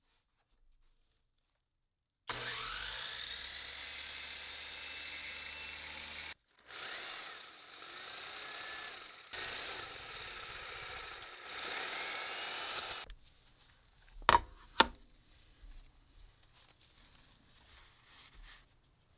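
Power tools cutting through a baguette: a miter saw runs and slices the bread for about four seconds, then two more stretches of power-tool cutting follow with short gaps between. Two sharp knocks come after that.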